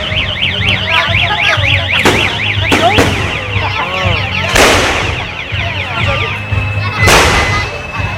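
Aerial firework shells bursting: four loud booms, spaced irregularly. Under them a car alarm warbles rapidly up and down, stopping about six seconds in.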